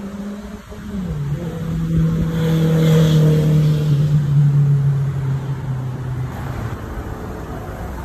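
A motor vehicle's engine passing by, growing louder to a peak about three seconds in and then fading, its steady hum stepping down in pitch twice.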